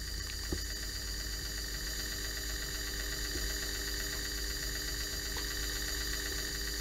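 Steady hum with hiss, made of several fixed tones, with a few faint clicks.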